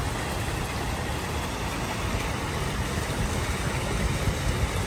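Steady splashing of water pouring from a plaza fountain, over a low, even rumble of city traffic.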